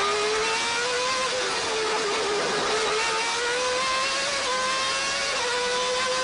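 Formula One car's Honda engine at high revs, heard from the onboard camera, its note climbing slowly with a few brief dips, over wind and tyre noise.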